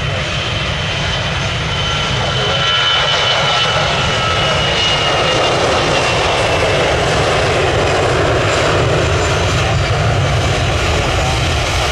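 Jet airliner's engines at takeoff power as it passes, a loud steady rumble with a faint high whine that slowly falls in pitch.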